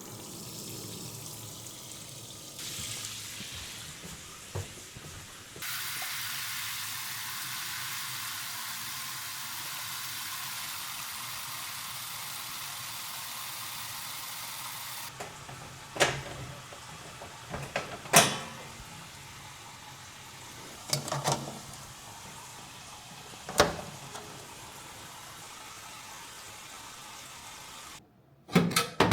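Water running steadily from a kitchen tap, hissing, stopping abruptly about halfway through. A few sharp clacks and knocks follow, like parts being handled at the sink.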